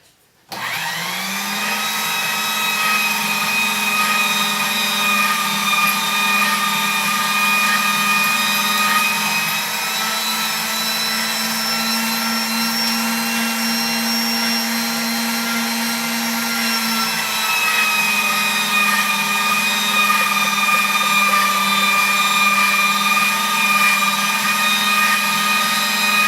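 Electric pasta machine's motor running with a steady whine as pasta dough is rolled through it. The whine starts about half a second in and shifts slightly in pitch in the middle.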